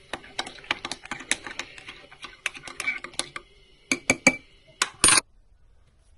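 Crockery and cutlery being handled: irregular clinks and knocks, with a few louder ones about four to five seconds in. They stop a little after five seconds.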